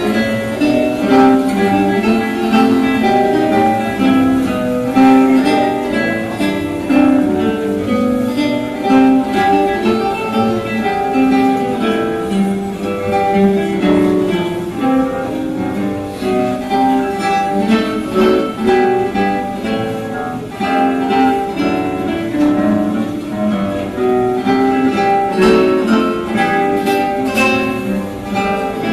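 Acoustic guitar quartet playing an instrumental piece: several classical guitars plucking melody and accompaniment together in a steady, flowing stream of notes.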